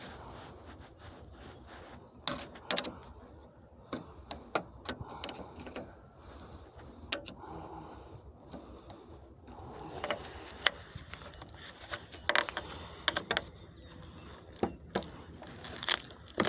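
Old wood chisel prying at a scrap radiator's sealed end, metal clicking, scraping and snapping in irregular bursts as the plastic end tank is worked loose from the metal core.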